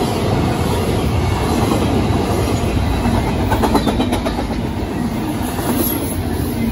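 Double-stack intermodal well cars rolling past on steel wheels: a steady loud rumble with clickety-clack over the rail joints, and a short cluster of sharp clicks about three and a half seconds in.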